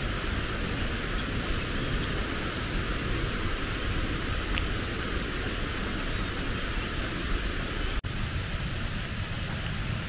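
Steady rush of flowing water, an even hiss over a low rumble, broken by a momentary cut-out about eight seconds in.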